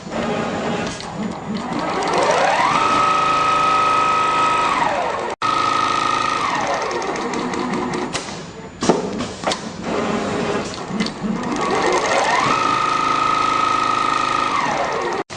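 Automatic sewing machine running. Its motor whine rises in pitch, holds steady while it stitches, then falls as it slows to a stop, and this happens twice. Between the two runs there is a stretch of clicking and clattering from the mechanism.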